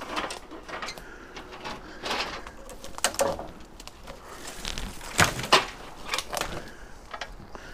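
Irregular crunching and rustling of footsteps pushing through brush, weeds and debris, with two sharper cracks close together about five seconds in.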